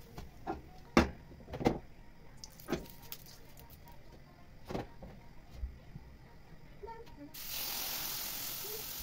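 A spatula knocks and scrapes on non-stick frying pans in a few sharp strikes, the loudest about a second in. About seven seconds in, omelet batter poured into the hot oiled pan sets off a sudden, steady sizzle.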